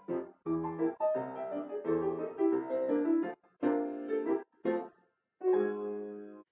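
Grand piano played solo, a ragtime piece in short, clipped phrases with brief silent breaks between them, ending on a held chord that dies away near the end.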